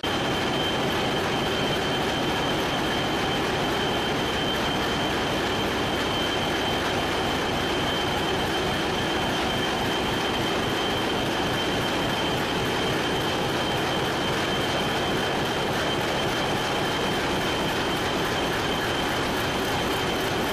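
Large multi-cylinder stationary diesel engine running steadily at speed, a dense rapid firing with a steady high whine over it.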